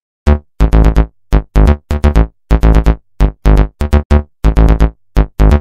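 Electronic music with short, punchy synth chords over heavy bass, cut into a choppy stop-start rhythm. It starts about a quarter second in.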